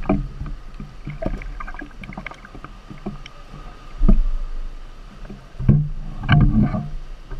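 Pool water lapping and splashing against an action camera bobbing at the waterline, a run of uneven sloshes with a heavier surge about four seconds in and a cluster of stronger splashes near the end.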